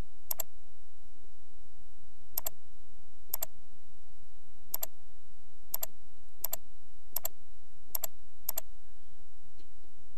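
Computer mouse clicks, about nine sharp single clicks at irregular intervals, as drop-down menu choices are made on a web form. A faint steady tone lies underneath.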